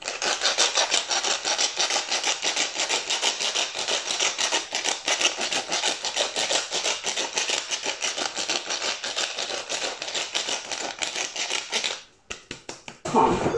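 Twist pepper mill grinding peppercorns: a fast, even run of crunching clicks that stops near the end, followed by a few scattered clicks.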